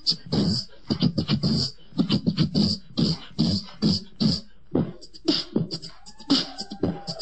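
Human beatboxing: mouth-made kick drums, snares and hissing hi-hats in a steady beat, with a short sliding hummed tone near the end.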